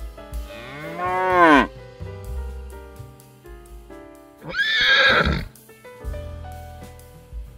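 Two animal calls over background music with piano-like notes: a drawn-out call that rises and then falls in pitch, then about four and a half seconds in a louder, harsher, higher call lasting about a second.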